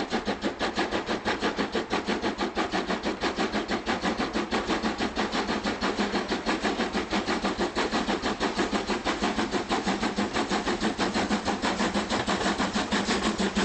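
Steam locomotive working under steam, its exhaust beating in a fast, even rhythm of about five to six chuffs a second.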